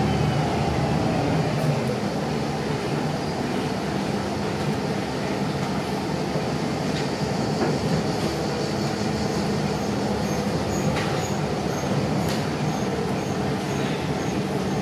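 Inside the cabin of a Volvo B5TL double-decker bus under way: the Volvo D5K-240 four-cylinder diesel runs steadily, with road and body noise. A faint regular ticking, about two a second, comes in past the middle.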